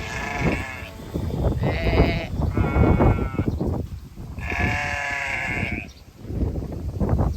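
Flock of sheep bleating: about five calls in a row, one longer bleat of over a second about halfway through.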